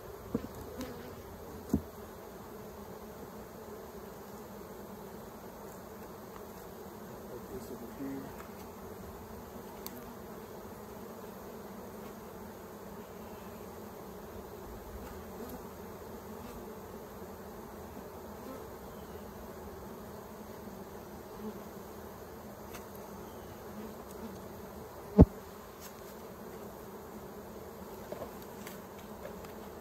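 Honeybees buzzing steadily as a low hum around an open hive whose frames are being worked. A few sharp knocks of wooden hive frames and boxes being handled come through, the loudest near the end.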